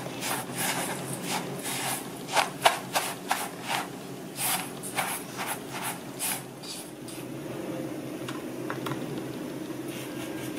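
Silicone spatula stirring and scraping graham cracker crumbs in a stainless steel bowl: a quick run of gritty scrapes and taps against the metal that thins out about seven seconds in.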